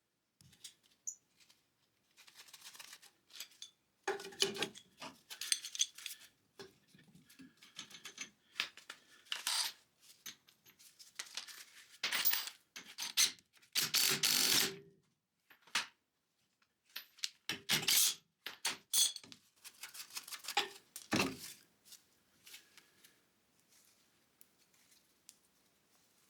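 Hand work on metal parts: irregular clicks, clanks and scraping sounds in short bursts, dying down near the end.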